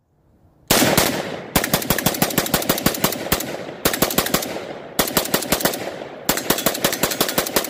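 CETME L rifle, a semi-automatic 5.56 mm roller-delayed blowback rifle, fired rapidly: a couple of shots a little under a second in, then four fast strings of shots, several a second, with brief pauses between strings.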